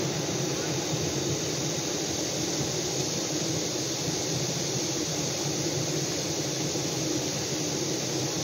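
Mountain stream running over rocks: a steady, unbroken rush of water.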